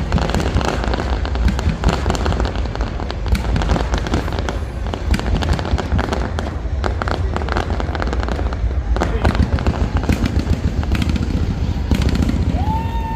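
Fireworks display going off: a dense, continuous run of sharp bangs and crackles over a deep rumble, with no break. Near the end a drawn-out high tone rises, holds and falls.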